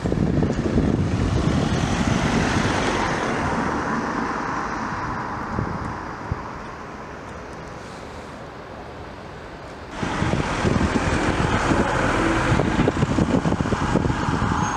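Road traffic noise with wind buffeting the microphone. It eases off over the first half, then turns abruptly louder about ten seconds in as a van passes close by.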